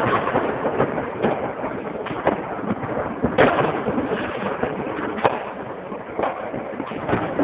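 New Year's fireworks going off: an irregular string of bangs, about one a second, over a steady background noise. The loudest bang comes about three and a half seconds in.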